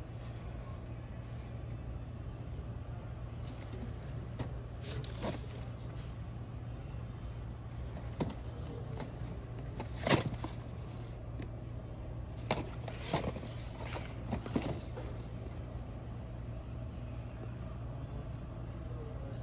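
A packaged burger press set being handled and knocked against a metal store shelf: a few light knocks and rustles, the sharpest about halfway through, over a steady low hum.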